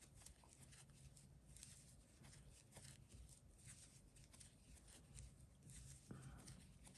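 Near silence with faint light rustles and ticks of yarn being drawn through by a crochet hook as double crochet stitches are worked.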